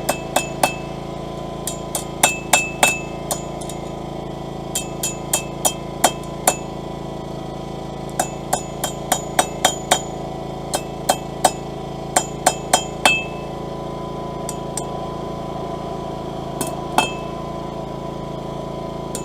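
Hammer blows on steel over an anvil, each strike ringing briefly, in short irregular runs that thin out after about thirteen seconds to a few last blows. A steady hum runs underneath.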